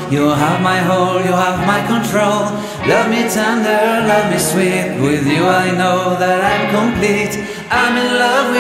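Pop song playing, with a sung vocal line over a steady bass.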